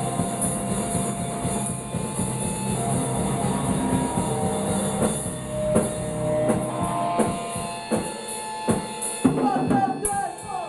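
A punk rock band playing live: electric guitar and drums with crashing cymbals in a dense, loud wall of noise. After the middle the low rumble thins, leaving separate drum hits standing out. A shouted vocal begins into the microphone near the end.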